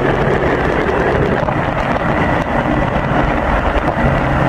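Speedboat engine running steadily while under way, with wind rushing over the microphone.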